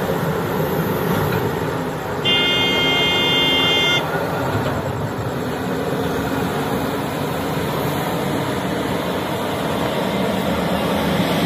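Heavy diesel machinery, a backhoe loader and a truck, running steadily. About two seconds in, a vehicle horn sounds once for just under two seconds.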